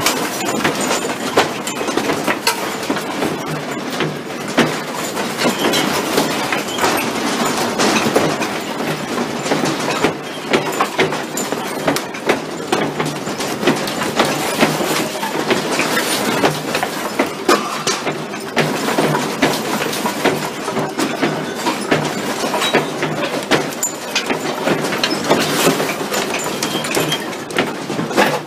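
A house's fittings and loose contents rattling and clattering as it shakes in a strong earthquake: a constant, dense run of small knocks and rattles.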